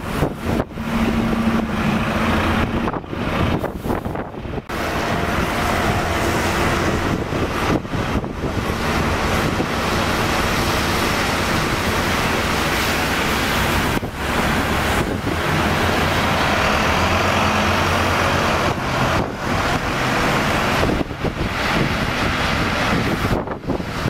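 London buses and road traffic passing: a steady drone of engines and tyres with a low engine hum that shifts in pitch and a few brief dips in level.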